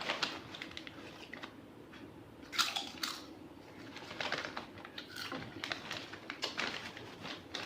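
Eating snacks: crinkling of a snack packet and crunching, a scatter of short clicks and rustles with a louder noisy burst about two and a half seconds in.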